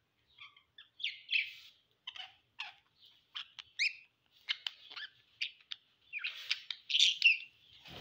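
Budgerigars chirping: a string of short, high chirps, some sliding up or down in pitch, coming thicker and louder toward the end.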